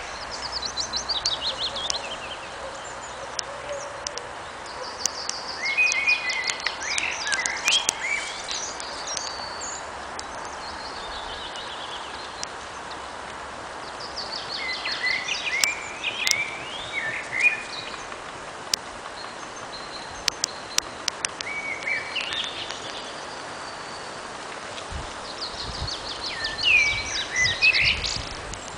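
Wild songbirds singing: a short phrase of rapid chirping notes repeats about every ten seconds over a steady background hiss. A few low thumps come near the end.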